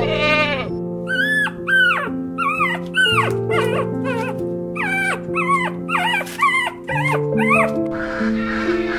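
A puppy whimpering and yipping in a rapid run of short, high cries that fall in pitch, over gentle piano music. A goat's bleat trails off at the very start, and ducks begin quacking near the end.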